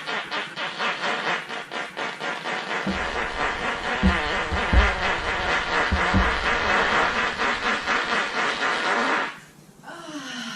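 Someone giggling in a long run of quick, rapid pulses for about nine seconds, with a few low bursts in the middle of the run.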